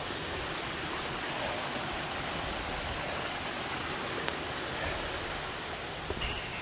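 Steady rushing of a stream or waterfall, with one sharp click about four seconds in.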